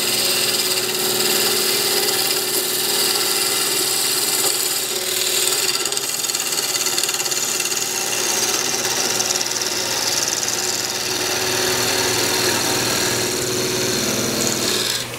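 A narrow parting tool cutting into a wooden spindle spinning on a wood lathe between centers, a steady scraping hiss over the lathe's hum, as the tool is pushed deeper into the kerf to part the piece off. The cutting stops just before the end.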